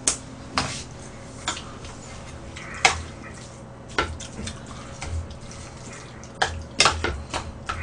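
Metal spoon knocking and scraping against a serving dish as food is scooped, an irregular string of sharp clicks and taps.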